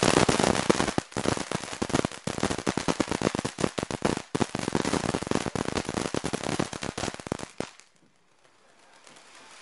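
Ground fountain firework spraying sparks with dense, rapid crackling. The crackling cuts off suddenly near the end.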